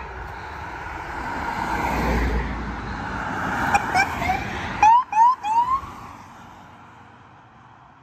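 Road noise from a passing vehicle swells and fades, then a police vehicle's siren gives a quick run of short rising chirps, about six over two seconds, starting near the middle.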